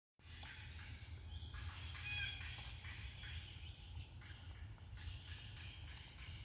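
Outdoor ambience: a steady high-pitched insect drone, with a few short chirps about two seconds in, over a low rumble on the microphone.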